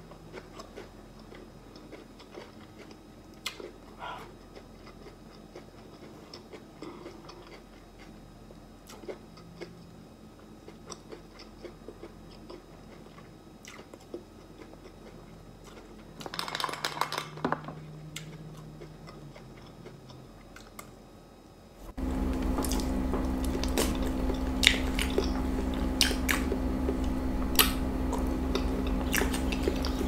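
Close-miked chewing with soft mouth clicks, quiet, with a louder noisy burst about sixteen seconds in. About twenty-two seconds in it switches abruptly to a much louder steady hum with sharp clicks over it.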